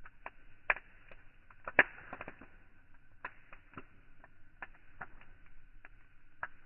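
Wood campfire crackling, with irregular sharp pops from the burning logs. Two louder pops come just under a second in and at about two seconds.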